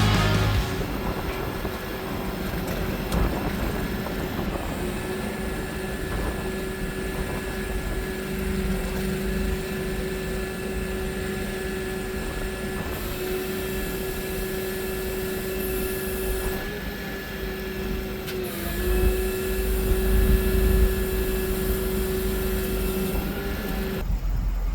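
Old Taylor forklift running, a steady machine whine over a low rumble, which wavers and shifts pitch briefly about two-thirds of the way through.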